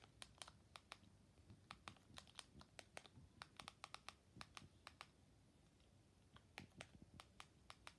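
Faint, quick clicks of TV remote buttons pressed over and over, several a second, stepping the highlight across an on-screen search keyboard, with a short pause past the middle.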